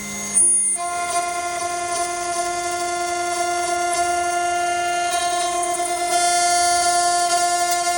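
CNC router spindle whining at a steady pitch as the bit cuts into PVC pipe, with a brief loud change under half a second in. The cutting hiss grows a little louder about six seconds in.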